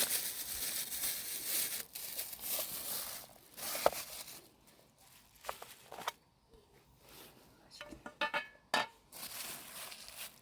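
Plastic food wrapping rustling, tearing and crinkling as a snack is unpacked: dense for the first few seconds, then scattered crinkles and small clicks, with one sharp click about four seconds in.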